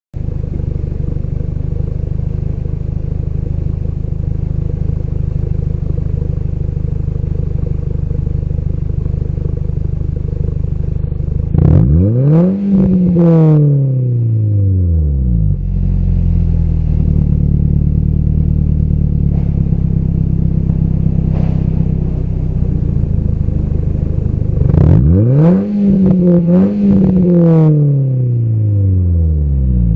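Exhaust of a Nissan Note NISMO S (E12) 1.6-litre four-cylinder through a Kakimoto Kai Class KR aftermarket sports muffler, idling steadily. About twelve seconds in the engine is blipped once: the note rises sharply and falls back to idle over about three seconds. Around twenty-five seconds in comes a double blip, two quick rises, before it settles back to idle.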